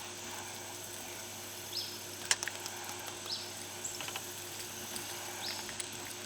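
Outdoor ambience with a bird giving short, high, falling chirps every second or two. A couple of sharp clicks sound about two and four seconds in.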